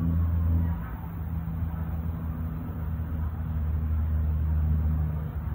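Aircraft flying overhead, its engines making a low, steady drone.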